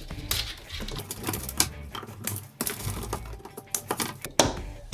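An irregular run of light clicks and taps from pliers and parts at a car window regulator's spring-loaded cable tensioners as their spring tension is released, with one sharper click about four and a half seconds in.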